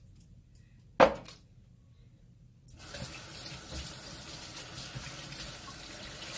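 A sharp knock about a second in. Then, from near the three-second mark, a kitchen sink tap is turned on and water runs steadily from the faucet while hands are washed.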